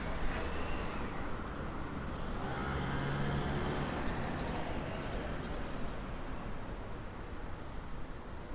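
Road traffic on a city street: cars driving past with steady tyre and engine noise, and one vehicle's engine passing close and louder about three seconds in.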